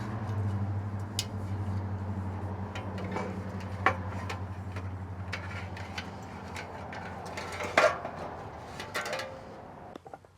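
Scattered small metal clicks and clinks of RV furnace parts being handled during reassembly, over a steady low hum that fades out near the end.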